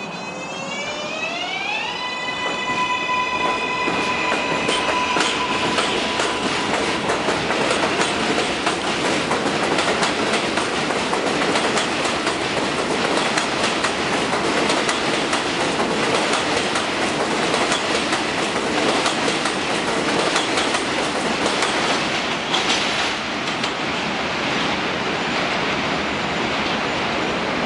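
R188 subway train pulling out and accelerating: its motors give a whine that rises in pitch over about two seconds and then holds steady for a couple of seconds. Wheel-on-rail noise with rapid clicking over the rail joints then takes over as the cars pass and pull away.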